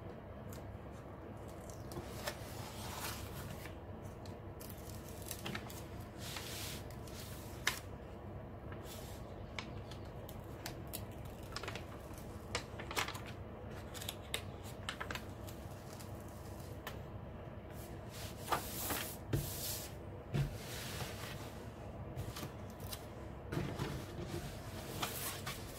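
Clear plastic protective film on a diamond-painting canvas rustling and crinkling as it is handled and smoothed by hand, with scattered light taps, over a faint steady hum. The crinkles grow more frequent in the second half.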